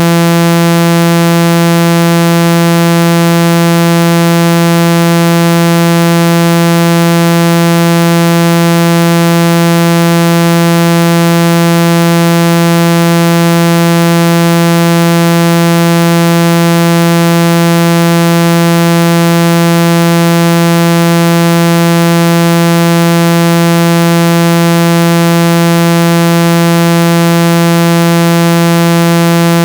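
A steady, loud, low buzzing electronic tone held at one pitch without any change or break. It is a speaker-cleaning tone meant to vibrate a phone speaker's mesh and shake out trapped water and dust.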